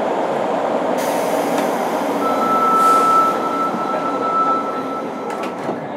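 Running sound heard aboard a JR Kyushu 103 series motor car (MoHa 103-1510) travelling through a subway tunnel: a steady rumble of wheels and running gear. A thin high tone comes in about two seconds in and fades out about three seconds later.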